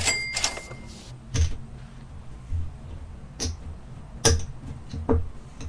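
Casino chips clacking as they are set down and stacked on a felt blackjack table, five or so sharp clicks spaced irregularly about a second apart, as the dealer pays out a winning bet.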